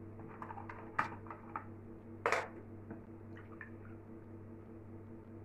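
A few light clicks and clinks of a glass vinegar bottle and a small drinking glass being handled, with a brief splash about two seconds in as grape vinegar is poured from the bottle into the glass.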